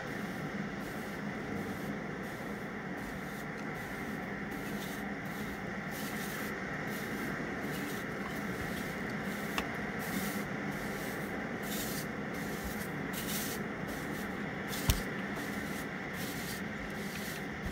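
A steady rushing hiss with soft scraping strokes every second or so, and a light knock about fifteen seconds in.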